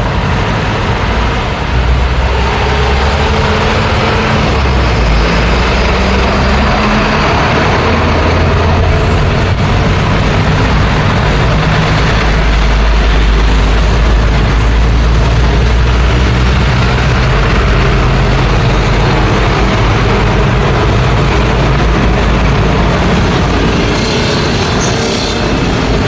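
Mixed street traffic: cars, minivans, motor scooters and trucks driving past, a steady rumble of engines and tyres.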